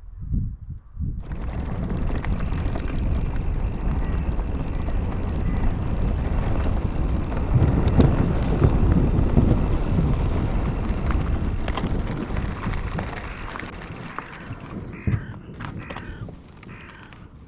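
Mountain bike being ridden along a trail: wind buffeting the action camera's microphone and tyre noise. It starts abruptly about a second in, builds to its loudest around the middle, then eases off. A bird calls a few times near the end.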